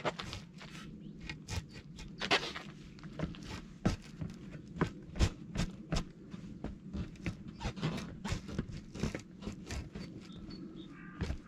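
Irregular knocks, taps and scrapes from a truck tyre and split wheel rim being handled while the valve and rim tape are worked into place.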